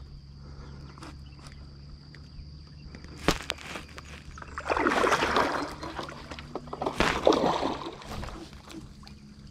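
Water splashing and sloshing in two bursts of about a second each, around five and seven seconds in, as a hooked blue catfish is played beside the boat. A single sharp knock comes a little before, over a steady low hum.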